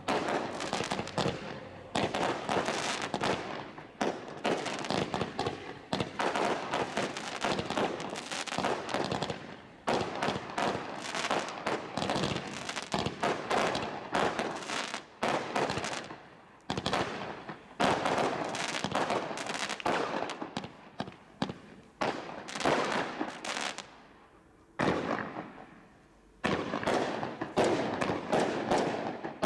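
Consumer firework barrage firing: a rapid, continuous run of bangs and crackles, with a short lull about 25 seconds in before it starts again.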